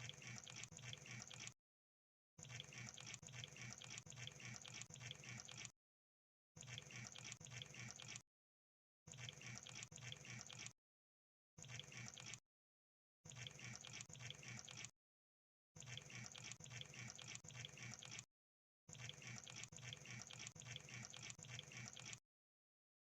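Crab sound effect: bursts of rapid, crackling clicks, each lasting one to three seconds, repeated eight times with dead silence between them.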